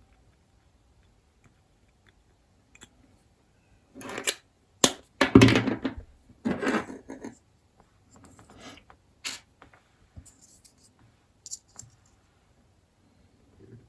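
CJRB Hectare pocket knife parts being handled and fitted together: a cluster of scraping and clicking about four seconds in, with one sharp click, then lighter scattered clicks.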